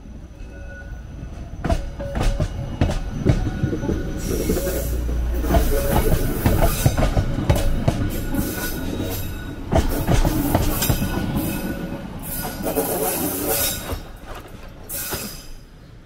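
Blue Line Park beach train passing close by, its wheels clattering and squealing on the rails. It grows loud a couple of seconds in, holds for about ten seconds and fades away near the end.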